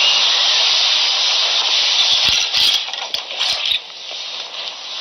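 Loud steady hiss, with a few sharp clicks and knocks between about two and four seconds in; the hiss drops in level a little before the end.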